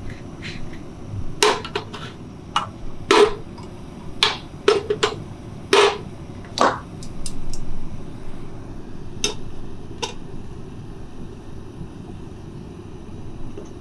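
Steady low roar of a lit portable gas camping stove burner, with a run of sharp knocks and clacks, mostly in the first seven seconds and twice more a few seconds later, as things are handled and set down around the stove.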